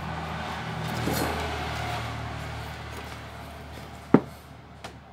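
A low background rumble over a steady hum swells in the first couple of seconds and fades. About four seconds in, a sharp click of metal tweezers taking hold of a small chip, then a fainter click.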